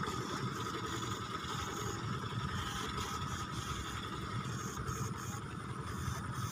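Battery-powered backpack eel electroshocker buzzing steadily while its two poles pass current through the paddy water.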